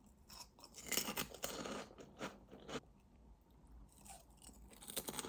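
Someone chewing crunchy food: irregular, faint crunches with a short pause in the middle.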